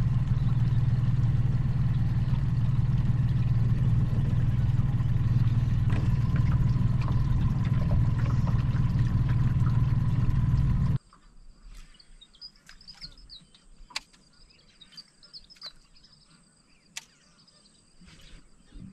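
Mercury outboard motor running steadily as the boat travels, a loud low drone. About eleven seconds in it cuts off suddenly, leaving quiet surroundings with birds chirping and a few sharp clicks.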